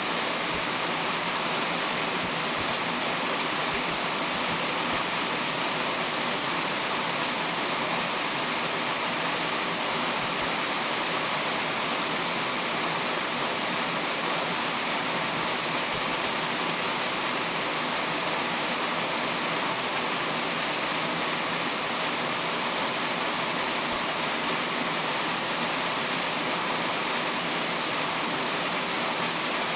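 Steady, unbroken rushing of a mountain stream's flowing water.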